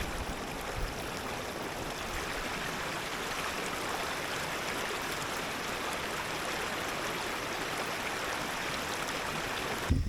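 Mountain stream running over rocks: a steady rushing of water that cuts off suddenly near the end.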